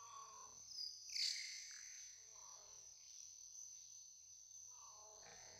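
Faint background music under a steady high tone; about a second in, one short high squeal falls in pitch.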